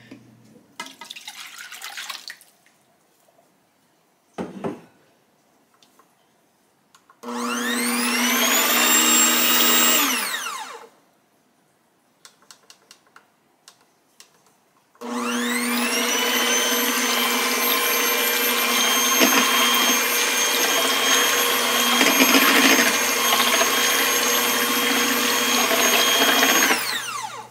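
Milk is poured into a bowl, then an electric hand mixer with twin wire beaters beats the thin egg, butter and milk batter. It gives a short run of about three seconds, its whine rising as it spins up and falling as it stops. After a pause it runs steadily for about twelve seconds and cuts off near the end.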